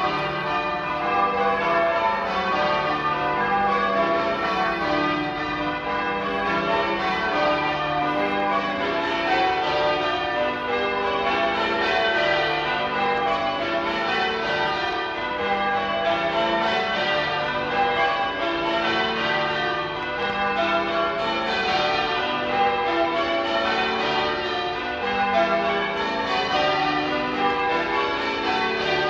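Church bells change ringing: a ring of bells struck one after another in quick, even rounds, with no pause.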